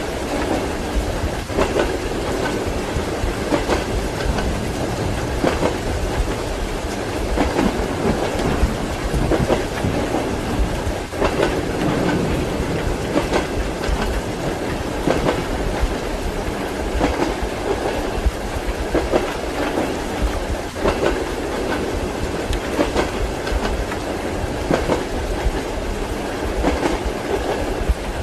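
Train wheels clicking over rail joints in a steady rhythm, a pair of knocks about every two seconds, over the constant running rumble of a passenger carriage heard from inside a compartment, with rain hissing beneath.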